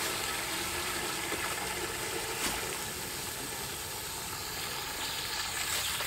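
Steady, splashy rush of garden-hose water swirling inside a five-gallon game bird washer bucket and spilling over its rim onto a plastic trough.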